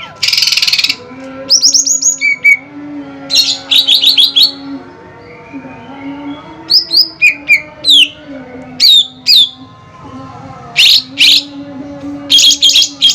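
Songbirds singing vigorously: loud, rapid clusters of sharp chirps and whistled notes, opening with a harsh buzzy rasp in the first second, over a faint low wavering tone.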